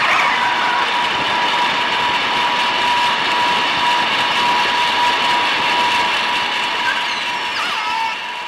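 Hydrophone recording of a nearby boat passing, as killer whales hear it underwater: loud, steady engine and propeller noise with several held hums. Faint gliding killer whale calls show through near the end.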